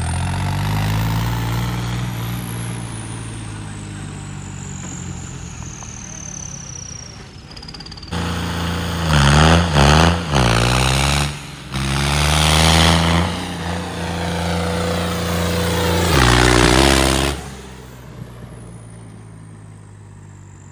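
Tractor diesel engine revved hard, its pitch rising and falling repeatedly, with a high whistle that falls slowly in pitch. The sound jumps abruptly several times, and the loudest revving is in the middle stretch.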